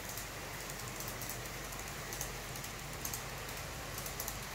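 Kato N scale model trains running on DC: a faint, steady running hiss with light, irregular clicking from the wheels on the track.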